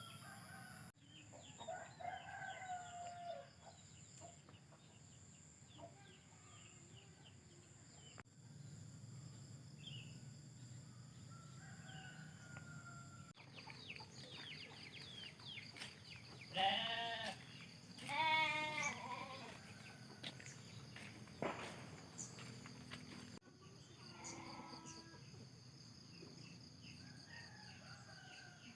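Goats bleating, two loud wavering calls in quick succession past the middle, over a steady high drone of insects and scattered bird chirps.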